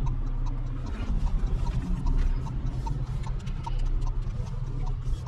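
Car turn-signal indicator ticking in the cabin, an even click about three times a second, over a steady low hum.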